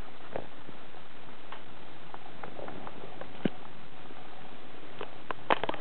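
Scattered small clicks and taps over a steady hiss, bunching into a quick flurry of clicks near the end.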